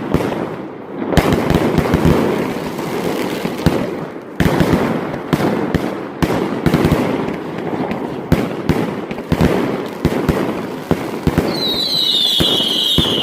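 Fireworks display: many shell bursts bang in irregular quick succession over a continuous rumble and crackle. Near the end a high whistle slides down in pitch.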